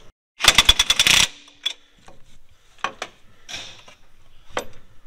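Ratchet wrench clicking rapidly for just under a second, then a few separate knocks of metal parts being handled.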